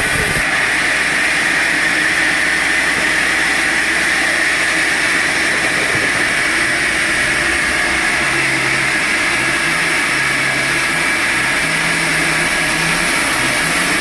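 Sawmill machinery running steadily at an even level, a continuous mechanical noise.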